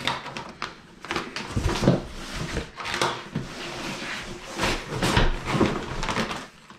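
Cardboard shipping box being opened and handled: irregular scrapes, rustles and light knocks of the flaps and box, with a plastic-bagged coil of coaxial cable and bubble wrap sliding out onto a wooden table.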